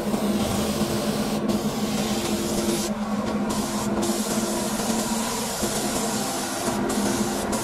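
Gravity-feed spray gun hissing as it sprays car paint, cutting out briefly several times, over a steady low hum.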